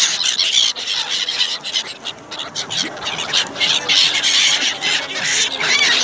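A flock of gulls calling all at once, a dense chorus of shrill squealing cries, as they crowd and dive for food thrown on the water.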